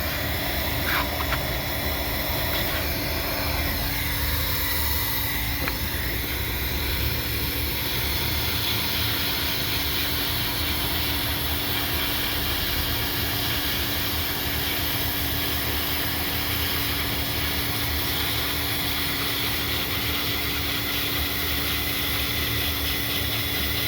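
Hot-air welding gun blowing steadily as it welds PVC pool liner membrane, a constant hiss with a steady hum.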